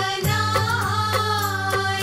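Indian film-soundtrack music: a held melody line that bends slowly in pitch over a steady low drone, with regular drum strokes at about four a second.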